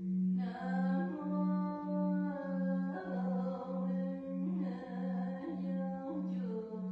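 A low steady drone pulsing just under twice a second, the loudest sound. About half a second in, a voice comes in over it, chanting or humming in long held notes that step from one pitch to the next.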